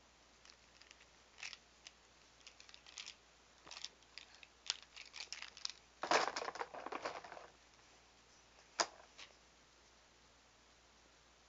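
Markers being handled close to the tablet's microphone: scattered light clicks and rustles, a longer, louder rustle about six seconds in, and one sharp click near the end.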